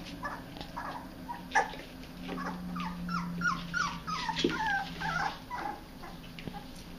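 Mini Australian Shepherd puppies whimpering and yipping in play: a run of short, high cries that fall in pitch, about two or three a second, through the middle of the stretch. A single sharp knock comes about one and a half seconds in.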